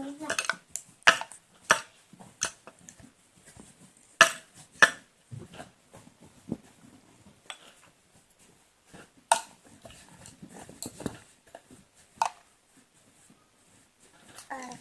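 Irregular sharp knocks and clacks of hard objects, a dozen or so spread unevenly, the loudest a little after one second and again around four seconds in.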